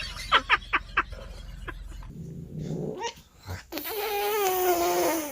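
A domestic cat gives one long, drawn-out yowl in the second half that wavers slightly in pitch and cuts off abruptly. It is preceded by several short sharp clicks.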